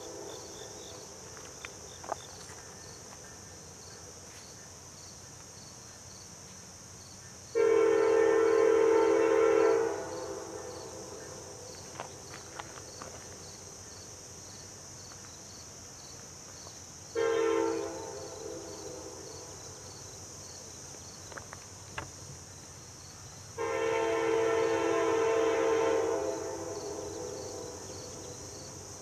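Diesel locomotive air horn sounding a chord of several tones in three blasts: a long one about eight seconds in, a short one, then a long one near the end. This is the close of the long-long-short-long grade-crossing signal of an approaching train. Insects drone steadily underneath.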